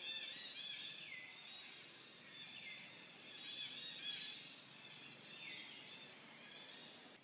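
Faint chorus of birds calling in the trees: dense, overlapping high chirps and twitters, with several calls sliding down in pitch.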